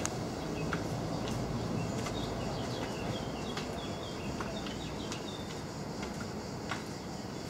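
A small bird chirping in quick short notes for a few seconds, over a steady outdoor background hum, with a few faint clicks.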